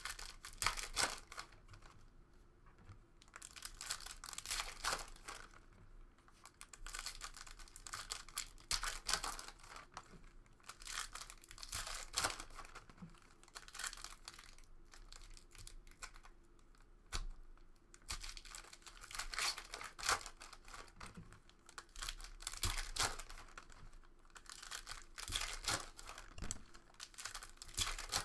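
Foil packs of trading cards being torn open and their wrappers crinkled, with the cards handled in between. The noisy rustling comes in bursts every second or two.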